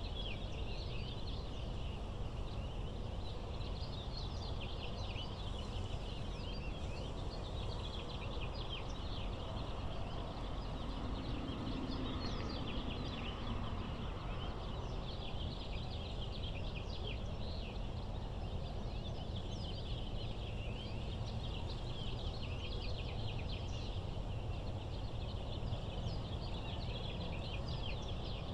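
Many small birds chattering together in a dense, continuous mass of short high chirps, over a steady low background rumble.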